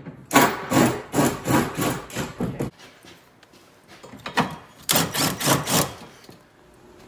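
Cordless impact wrench run in short repeated bursts, spinning the hitch's mounting bolts up snug but not torqued.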